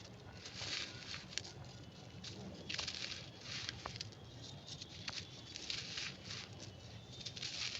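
Crunchy, brittle material crumbling and crushing, an irregular run of small crackling crunches with a few sharp clicks and denser bursts of crunching every second or so.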